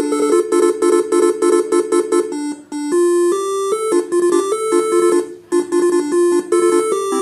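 Telolet horn tune from a Faniatech R3 module driving a Basuri multi-tone horn: a fast melody of short notes jumping between a few fixed pitches, with brief breaks between phrases.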